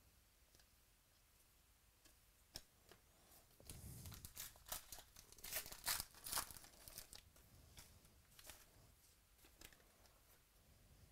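A 2018 Classics Football hobby pack's wrapper being torn open by hand: a run of crinkling and tearing about four to seven seconds in, with faint clicks of cards being handled before and after.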